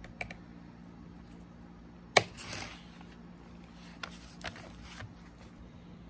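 Small clicks and taps of needle-nose pliers against the chainsaw's plastic purge pump and fuel-line fittings as a fuel line is worked off its port, with one sharper click about two seconds in followed by a brief scrape.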